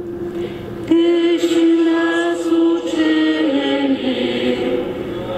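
Congregation singing the responsorial psalm refrain in unison, entering about a second in after the cantor's solo and stepping down in pitch toward the end.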